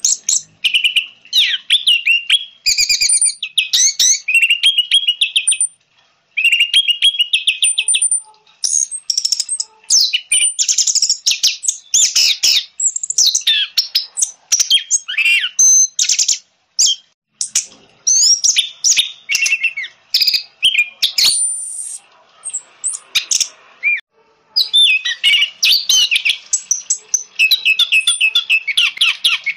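Orange-headed thrush singing a fast, varied song of whistled and chattering phrases, broken now and then by short pauses.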